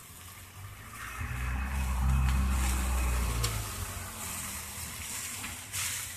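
A motor vehicle's engine going past: a low rumble that swells about a second in and dies away after about three and a half seconds.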